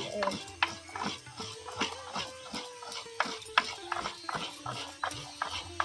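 Irregular light clicks and knocks, a few each second, over a soft held musical tone.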